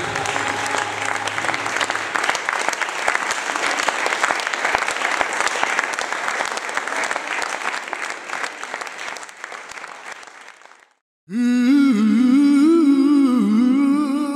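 Audience applause after a women's choir, the choir's last held chord dying away at the start. The clapping fades, cuts off about eleven seconds in, and a solo voice humming a slow, wavering melody begins.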